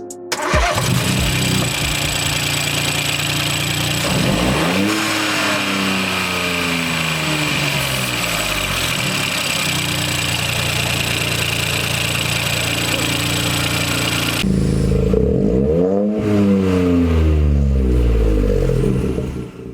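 Ford Fiesta EcoBoost engine, fitted with an induction kit, revved up and let fall several times with steady running between. About two thirds of the way through, the background hiss drops away and another rev rises and falls.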